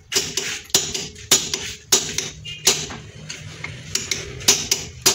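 A hammer striking a steel bar held against a Suzuki Alto's rear brake drum, blow after blow, roughly every half second, each strike ringing briefly off the metal.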